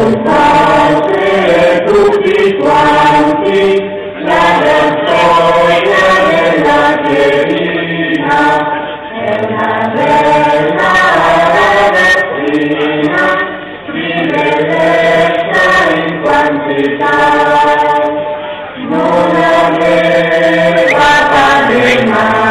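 A choir of voices singing a slow chant together, in held notes and phrases of a few seconds each with short breaks between.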